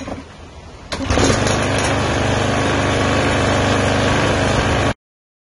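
Toro TimeMaster lawn mower's single-cylinder engine starting about a second in and then running steadily at constant speed, until the sound cuts off suddenly near the end. This is the engine that is burning oil, which the owner suspects is from a blown head gasket.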